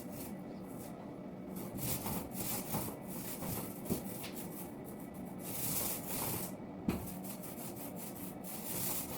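Repeated hand strokes rubbing and scraping across a surface in uneven passes, with a couple of sharp knocks.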